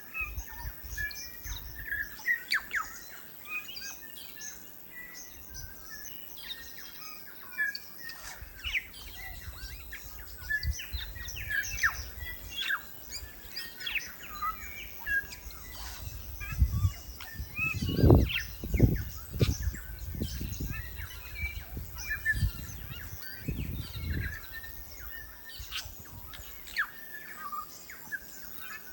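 New Zealand bellbirds (korimako) singing, a steady run of short notes and chirps, often overlapping. From about halfway through, a series of low rumbling thumps sets in, the loudest a little after the middle.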